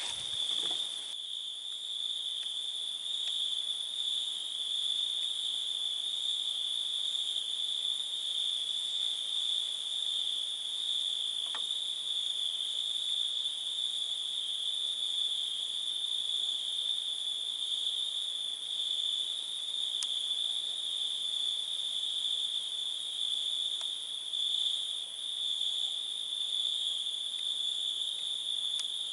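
A chorus of crickets singing: one continuous, unbroken high trill, with a fainter higher hiss above it.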